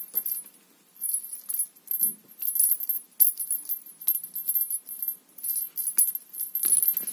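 Small bell on a feather cat-teaser wand jingling in short, irregular bursts as a cat bites and bats at the feathers.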